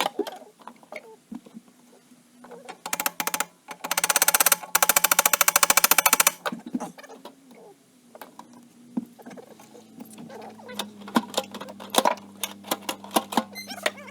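Sped-up workshop noise from tools working on an ATV: irregular clicks and metal knocks, with a loud burst of rapid, even rattling in the middle like a power tool running on a fastener.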